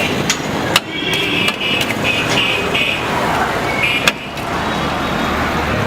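Street traffic with a vehicle horn honking for a second or two, starting about a second in, and a shorter honk near four seconds; a few sharp clicks in between.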